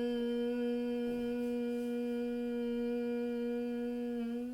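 A woman's long humming exhale at one steady pitch: the bee-like hum of Bhramari pranayama (bee breath), held without a break and easing off slightly near the end.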